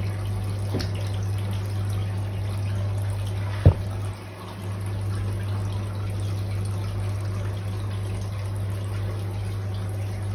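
Water from a filter return pipe pouring steadily into a turtle tank, with a steady low hum underneath. A single sharp knock about three and a half seconds in.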